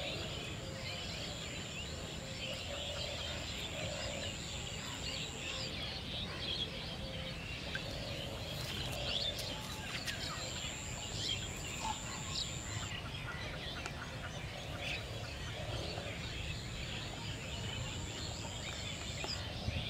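Outdoor pond-side ambience: many small birds chirping, with a few lower calls, over a low steady background rumble. A thin high steady whine sounds three times, a few seconds each time.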